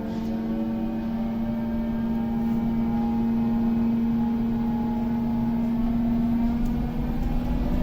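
TEP70 diesel locomotive machinery running during its first start-up after repair: a steady hum over a low rumble that grows slightly louder, with the rumble rising near the end.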